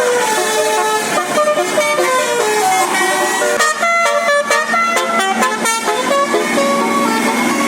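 Bus 'basuri' telolet melody horn playing a tune of short stepped notes, with a quicker, choppier run of notes in the middle.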